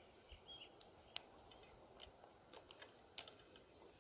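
Handling sounds from a small crappie being held and unhooked: a few sharp, scattered clicks and ticks over a quiet background, with faint bird chirps near the start.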